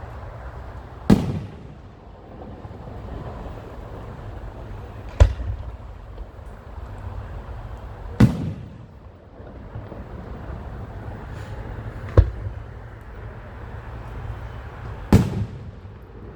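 Aerial fireworks shells bursting: five sharp bangs spaced three to four seconds apart, each trailing off in a short rumbling echo, over a steady low background rumble.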